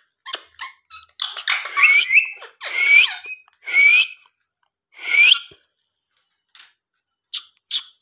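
Indian ringneck parakeet giving a string of short, raspy, high-pitched chattering calls, several ending in a rising squeak, followed by a few brief clicks near the end.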